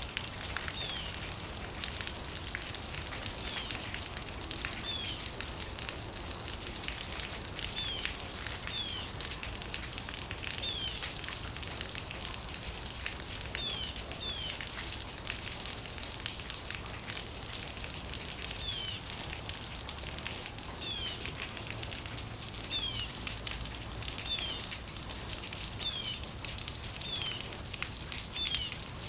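Rain falling and dripping, a steady crackle of many small drops. A faint, high, short falling chirp repeats every second or two throughout.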